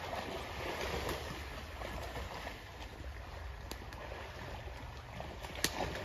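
Steady rushing of river water flowing, with a low rumble underneath and a couple of sharp clicks near the end.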